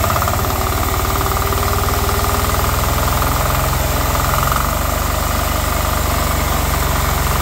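Single-cylinder 10 HP air-cooled diesel engine of a homemade generator running fast, about 2500 rpm, belt-driving its bank of motor-generators. It runs steadily with a rapid, even beat from its firing strokes.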